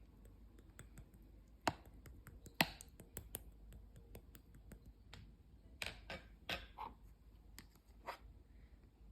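Slime being squeezed and pressed by hand, giving scattered sharp pops and clicks, the loudest about two and a half seconds in and a cluster a few seconds later.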